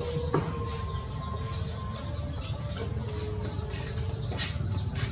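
Birds chirping and clucking: short high chirps every second or so and a few longer held low calls, over a steady low rumble.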